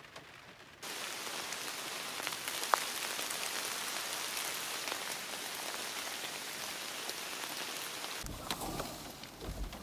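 Heavy rain falling steadily, an even hiss of countless drops that comes in about a second in, with one sharper drop just before three seconds.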